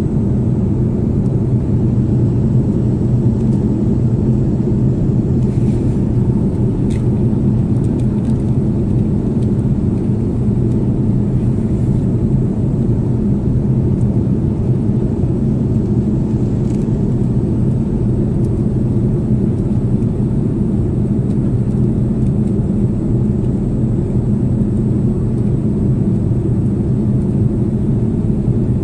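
Steady low roar of an airliner's cabin in flight, engine and airflow noise heard from a window seat, with a few faint clicks.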